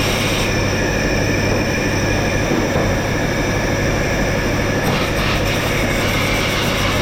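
Steady, loud factory machinery noise with a constant low hum and a hiss spread across all pitches.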